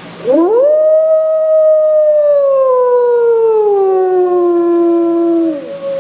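Gray wolf howling: one long howl that swoops up, holds, then slowly falls in pitch before breaking off near the end. A second, steadier howl joins it about four seconds in.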